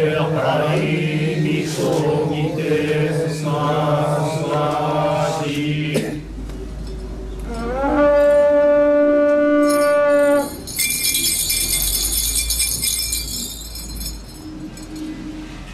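A group chanting in unison over a low drone. After about six seconds this gives way to a long blast on a horagai, a conch-shell trumpet, that rises at the start and is held for about three seconds before stopping abruptly. A few seconds of high metallic jingling follow.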